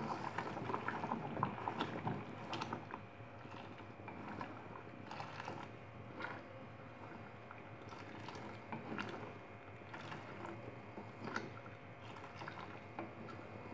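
Stirring a steel pan of thickened, boiling sugar syrup with a ladle: scattered soft clicks, taps and short scrapes of the ladle against the pan, mixed with small pops from the bubbling syrup.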